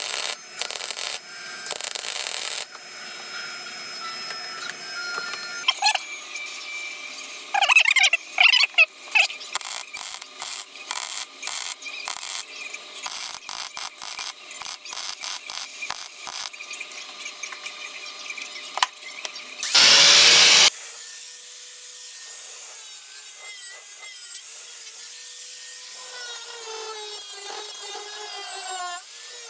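MIG welder joining a sheet-steel floor panel: short tack-weld bursts that start and stop sharply, then a long run of crackling welding with scattered clicks. About 20 seconds in comes one very loud, brief burst, followed by quieter tool noise with a wavering pitch.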